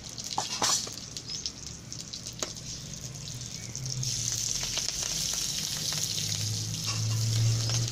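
Hot oil sizzling in a kadhai as mustard and cumin seeds are tempered for a tadka. There are a few sharp crackles at first, then the sizzle grows louder and steadier from about four seconds in.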